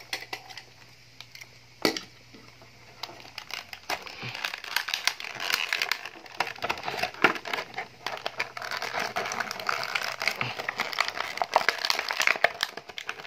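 Clear plastic blister packaging crinkling and crackling as hands twist and pry it apart to free a die-cast toy car. It starts with a few sharp clicks, the loudest about two seconds in, and from about three seconds in the crinkling becomes dense and continuous.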